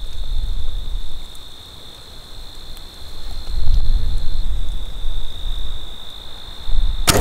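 Field insects trilling steadily at one high pitch, over a low wind rumble on the microphone that rises and falls. A single sharp click near the end.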